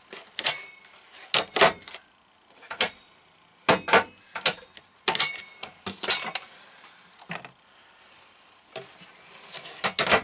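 Lift-up laminated wooden cabinet doors on gas struts being opened and shut by hand, making a series of sharp clicks and knocks as the doors meet their frames and catches. The clicks come irregularly, several a second at times, with a quieter gap a couple of seconds before the end.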